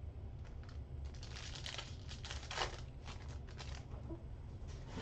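Foil wrapper of a 2022 Select football card pack crinkling and tearing as it is opened by hand: a run of short crackles, the loudest about two and a half seconds in.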